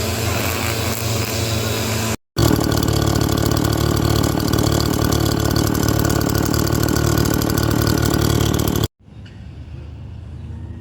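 An engine running steadily, in clips joined by abrupt cuts: a louder stretch starts about two seconds in and is cut off sharply near the end, leaving a much quieter background.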